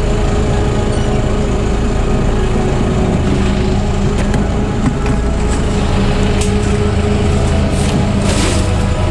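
Small fishing boat's engine running steadily, with a short splash of water near the end.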